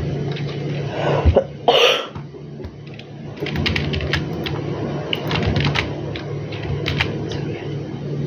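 A person coughing briefly, about a second and a half in, over a steady low hum; a run of light clicks follows from about halfway.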